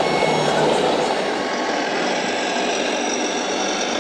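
Steady diesel truck engine sound from the sound module of a radio-controlled Scania scale model truck, running evenly with no revving.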